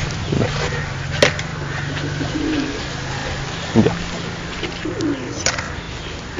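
Domestic pigeons cooing in low, drawn-out calls, with a couple of sharp clicks and a knock.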